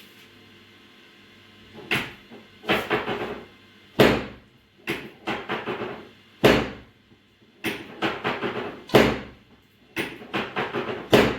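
Rhythmic thumping: a heavy thump about every two and a half seconds, each followed about a second later by a quick run of four or five lighter thumps.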